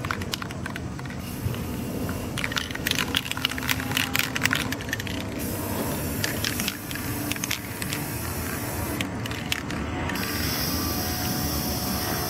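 Aerosol spray paint cans spraying onto water. In the first few seconds there is a run of short spits and clicks, then long, steady hissing sprays with a short break about nine seconds in.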